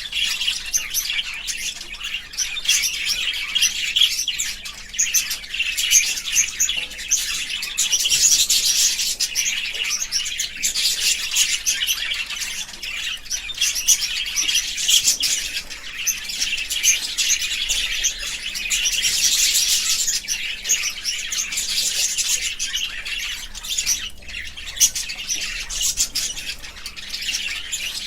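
Budgerigars chirping and chattering without a break, with many quick high-pitched chirps overlapping.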